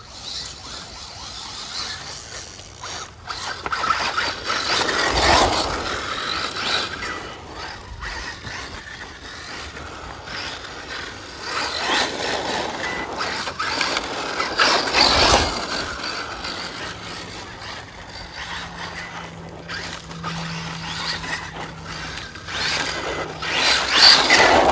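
FTX Zorro brushless RC car driving, its motor and drivetrain swelling louder and dying back several times as it speeds up and slows, with a ratcheting, clicking gear noise that the owner suspects is a metal gear meshing on a plastic one.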